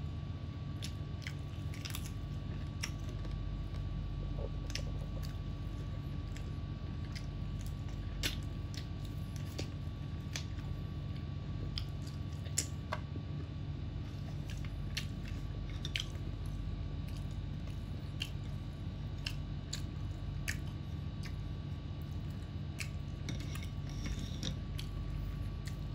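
Close-miked chewing and biting of fried chicken and rice eaten by hand, with scattered small mouth clicks and smacks. A steady low hum runs underneath.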